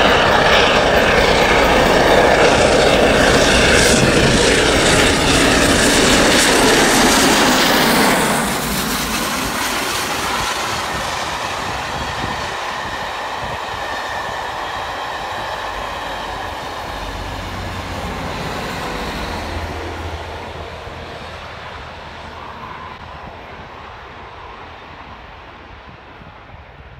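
Steam locomotive hauling a passenger train up the grade, with the working locomotive and its rolling wheels loud and close. About eight seconds in the level drops sharply, and the train of coaches rolls past and fades steadily as it draws away.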